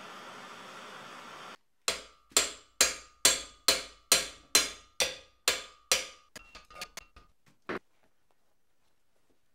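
Handheld propane torch hissing, shut off about a second and a half in. Then about ten sharp, ringing hammer blows on metal, roughly two a second, tapering into lighter taps and one last blow. The blows are working loose a torch-heated flange threaded onto the tapping head's shank.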